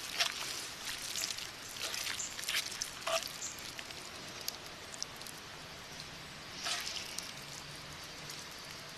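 Spoon scraping and tapping in a cast-iron skillet as noodle stir-fry is scooped out into a wooden cup: a handful of short scrapes and clicks over a faint steady hiss.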